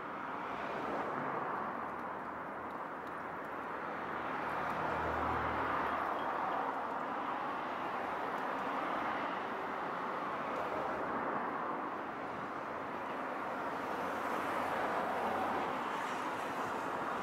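Street traffic: cars passing on the road, a steady hiss of tyres and engines, with a deeper engine hum passing about five seconds in.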